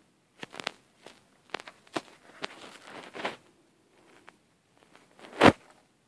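Close-up handling noise at the microphone: scattered sharp clicks, scratches and crackles, with one much louder knock about five and a half seconds in.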